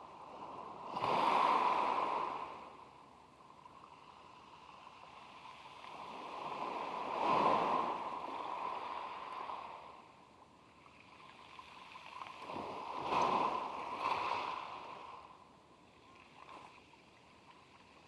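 Sea waves washing up on the beach and drawing back, three surges a few seconds apart.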